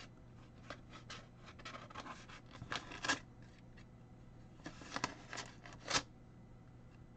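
Paper envelope being opened with a knife and handled: faint scratching and rustling of paper in short strokes, with a few louder ones about three seconds in and again around five to six seconds in.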